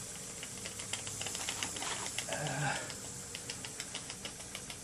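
Small vertical-boiler model steam engine running at a steady, moderate speed, its mechanism and exhaust making a quick, even run of light clicks over a steady hiss of steam leaking from the boiler.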